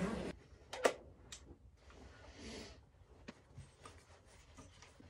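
Fabric rustling as a quilt and puffy jacket are stuffed and handled, with a few small clicks and knocks from camping gear and a tripod, the sharpest click just under a second in.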